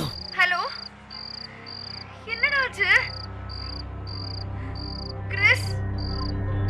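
Crickets chirping steadily, nearly two high chirps a second. Three short wavering pitched swoops come over them, and a low hum grows louder near the end.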